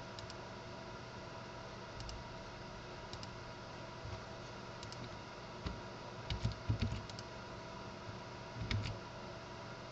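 Scattered clicks and taps of a computer keyboard and mouse, with a quick run of several about two-thirds of the way through, over a steady faint hum.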